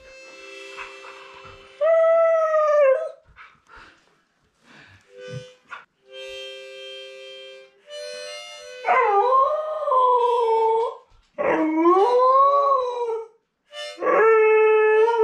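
Siberian husky howling along to a harmonica. The harmonica plays quiet held notes, two at a time, and the dog answers with four long howls that rise and then sink. The howls come about 2, 9, 11 and 14 seconds in and are louder than the harmonica.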